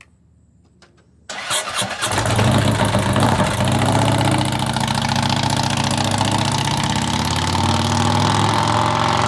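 Motorcycle engine started about a second in, catching after a brief crank and then running steadily at idle.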